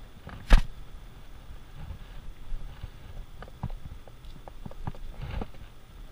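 Knife work on a beef short loin, the boning knife cutting underneath the finger bones: a sharp knock about half a second in, then scattered soft taps and clicks of blade and meat being handled.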